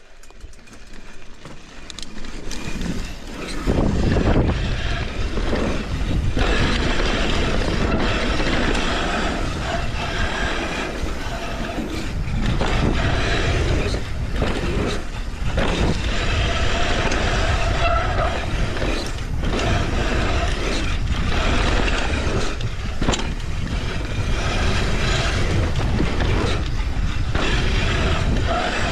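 Wind on the microphone and mountain-bike tyres rolling over a dirt trail on a fast descent, with frequent sharp clatters from the bike over bumps. The noise builds over the first few seconds as the bike picks up speed, then holds steady.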